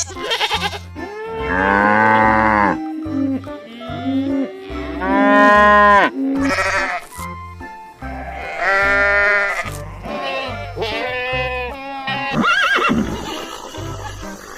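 Farm animals calling: about five long, drawn-out calls, one after another, over background music with a steady bass beat.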